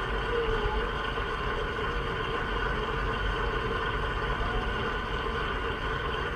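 Steady car interior noise from the engine and road while driving, heard inside the cabin.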